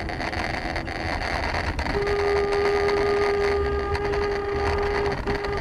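A car horn is held for about three seconds, then given a short second honk near the end, over steady road and engine noise inside the car.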